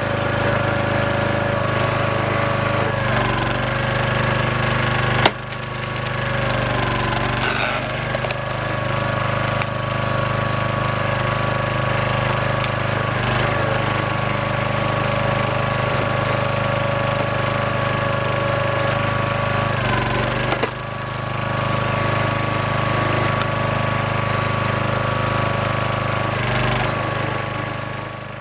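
A small 5-horsepower Briggs and Stratton engine running a log splitter, a steady drone whose pitch sags briefly several times as the splitter's ram takes load. There is a sharp snap about five seconds in, and the sound fades out at the end.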